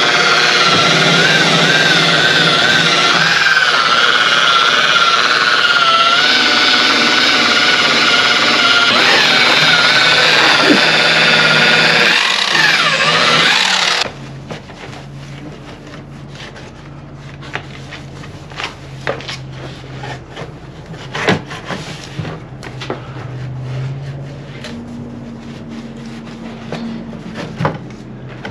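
Electric rotary polisher with a foam pad running steadily while it buffs cutting compound into a painted fibreglass engine shroud, its motor whine wavering up and down as it is pressed into the panel. It cuts off suddenly about halfway through, followed by softer rubbing and light clicks as a cloth wipes the panel.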